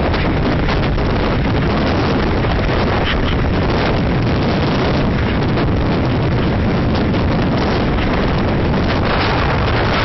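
Typhoon-force wind buffeting the microphone: loud, steady wind noise with constant low rumble.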